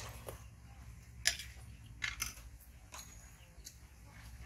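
A young pigtail macaque eating noodles by hand from a stainless steel bowl: a handful of sharp clicks and clinks of the bowl and eating, the loudest about a second in, over a low steady hum.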